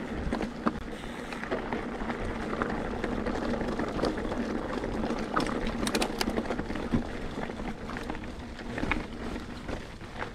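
Mountain bike rolling over a rocky trail: a steady crunching rush of tyres on rock and gravel, with scattered small clicks and rattles from the bike.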